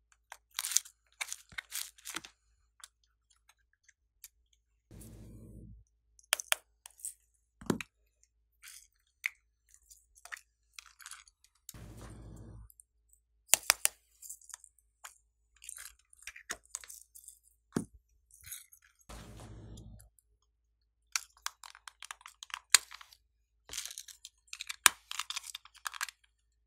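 Small plastic toys and containers handled and opened close to the microphone: scattered clicks, taps and crackles of plastic, in quick clusters. Three times a brief low hum lasts about a second.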